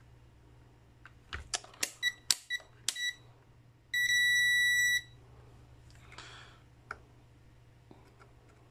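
PM8236 digital multimeter beeping as its buttons are pressed: a quick run of about seven clicks with short chirps, then one steady high beep lasting about a second. A single small click follows.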